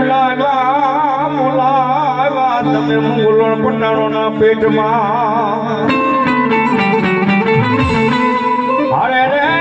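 Gujarati devotional music: a harmonium holds steady low notes while a melody line wavers up and down with fast vibrato, changing phrase about six seconds in and again near the end.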